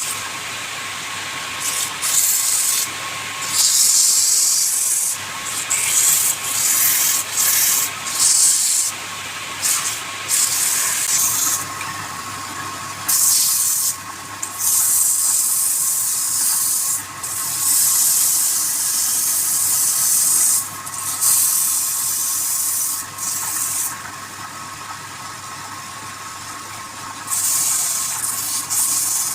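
Wood lathe running with a steady hum, while a tool or abrasive is pressed against the spinning wood in repeated stretches of hissing, each lasting up to a couple of seconds.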